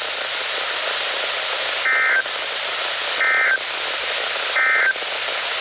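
Three short warbling data bursts of the Emergency Alert System's end-of-message code, about 1.3 seconds apart, marking the close of a NOAA Weather Radio warning. They sound over a steady radio hiss.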